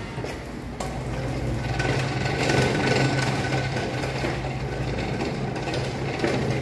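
A wheelchair being pushed along, its wheels and frame rattling continuously as it rolls over the floor, over a steady low hum.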